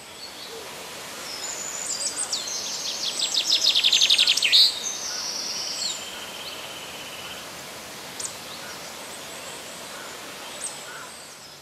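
Birds calling over a steady background hiss: thin high whistles and chirps come and go, and a loud, fast trill of rapid notes comes a few seconds in and lasts about a second and a half.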